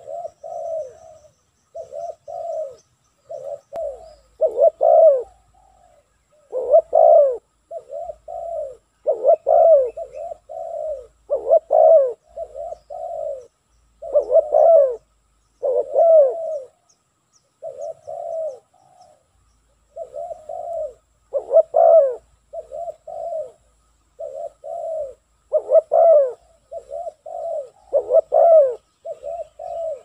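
Spotted dove cooing: a near-continuous run of short, pitch-dipping coos in repeated phrases, with a louder, higher-rising note every few seconds.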